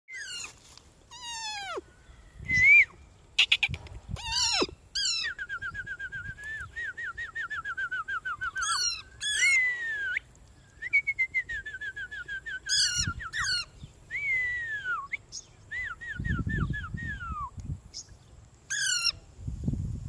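Parrot calling: a string of sharp, falling screeches and whistles, with fast runs of short repeated chirps in between.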